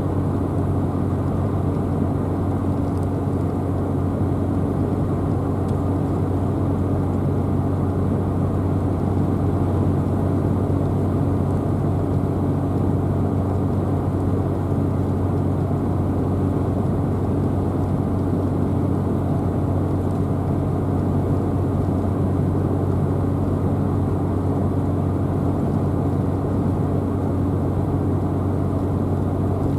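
Car driving at a steady speed: an unchanging low hum of engine and road noise.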